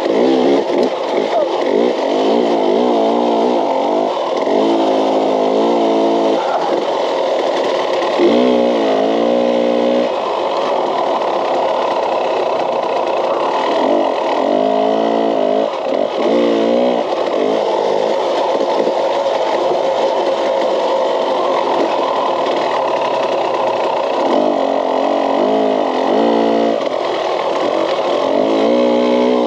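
KTM dirt bike engine revving hard and dropping back again and again as the rider accelerates and shifts along a rough trail, over a steady rush of wind noise.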